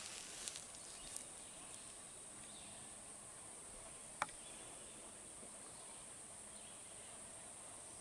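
Faint, steady high-pitched insect drone, with a few short clicks, the sharpest about four seconds in.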